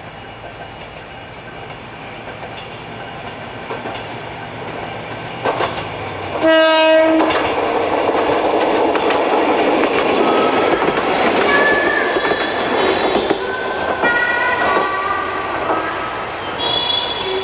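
Shimabara Railway diesel railcar approaching with a rising rumble. It sounds one short horn blast about six and a half seconds in, then its loud rolling noise carries on as it passes. Brief high-pitched tones come and go in the second half.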